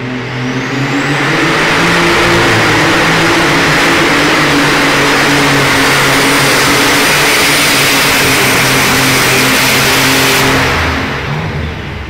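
Alcohol-burning John Deere light super stock pulling tractor launching at full throttle and pulling the sled. A rising whistle comes in the first second, the engine holds a loud, steady full-power note for about nine seconds, then falls off sharply near the end as the pull finishes.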